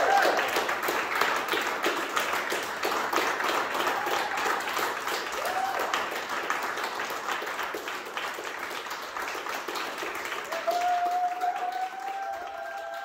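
Audience applauding, the clapping slowly dying down. A long held tone rises over the clapping in the last couple of seconds.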